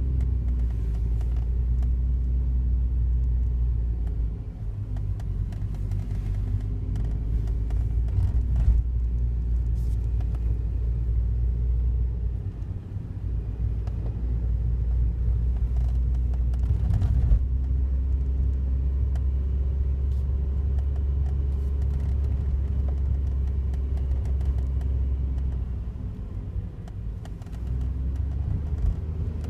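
Daihatsu Wake kei car running, a steady low rumble with fainter tones above it that rise and fall several times as the car speeds up and slows down.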